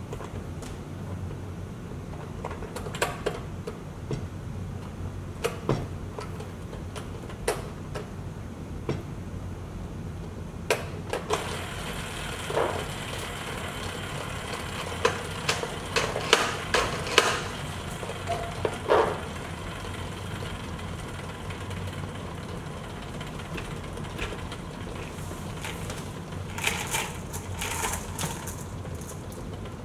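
Scattered clicks, taps and rattles of plastic parts being handled and turned on a wooden activity board, busiest in the middle, with a brief patch of quicker, higher rattling near the end, over a steady low background hum.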